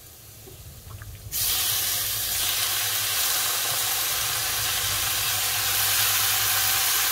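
Raw squid pieces and tentacles tipped into a hot pan of frying ginger, setting off a loud sizzle that starts suddenly about a second in and then holds steady.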